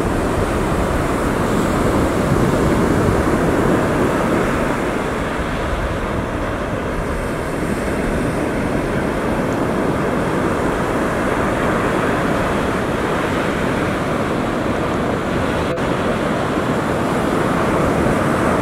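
Steady rush of small ocean waves breaking, with wind on the microphone; a single brief click sounds near the end.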